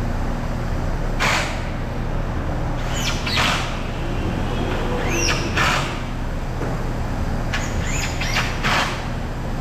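Steady low hum of workshop machinery, with short hissing bursts every second or so and a few brief high squeaks that slide down in pitch.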